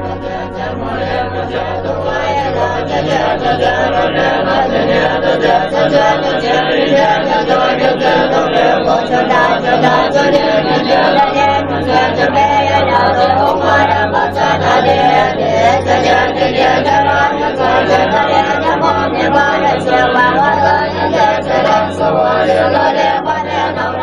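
Many voices chanting together in a choir-like prayer chant over a steady low drone, swelling in over the first couple of seconds.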